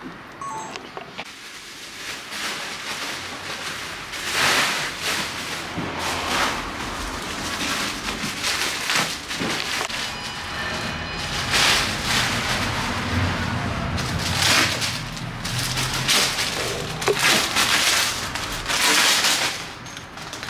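Clear plastic packaging bag being pulled and crumpled, a string of irregular rustling crinkles starting about four seconds in.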